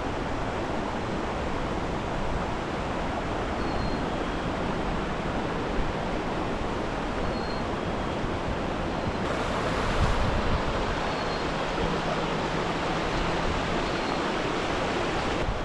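Steady rush of fast-flowing creek water, a little louder and brighter about nine seconds in.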